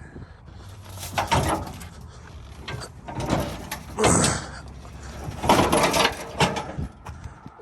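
Metal clattering, knocking and scraping, louder in several bursts, with a low steady hum for the first few seconds, while a car is unloaded.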